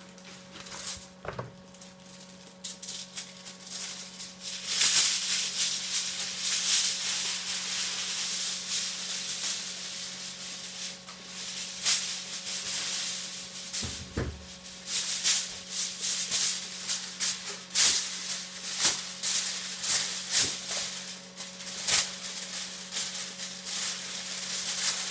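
Aluminium foil being handled: pulled from the roll, crinkled and pressed into a roasting pan, a dense crackling rustle that grows much louder about five seconds in. A dull knock comes about halfway through.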